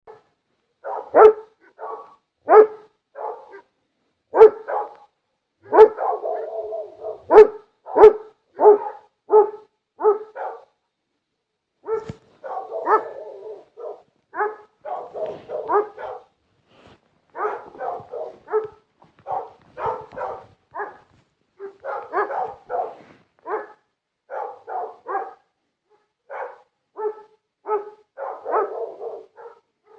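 A dog barking over and over in runs of short barks, about one to two a second, with brief pauses between the runs.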